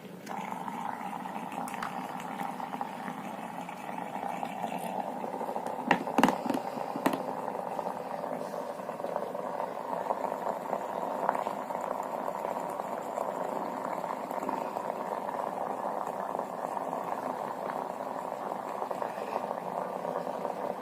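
Electric steam vaporizer boiling its water: a steady bubbling hiss that comes on suddenly just after the start, with a few sharp clicks about six to seven seconds in.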